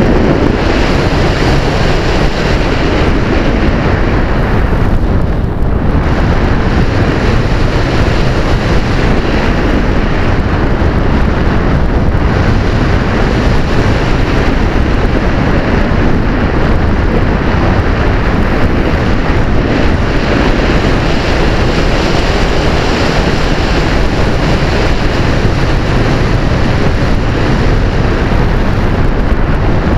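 Loud, steady rush of wind over the microphone of a camera riding on a flying Easy Glider radio-controlled model glider, easing briefly about five seconds in.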